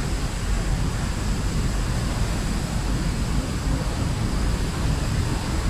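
Steady, loud rush of the Rhine Falls' whitewater, a dense unbroken noise with a heavy low rumble.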